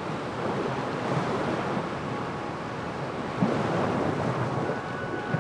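Lake Michigan waves washing steadily onto the beach, with a short bump about three and a half seconds in.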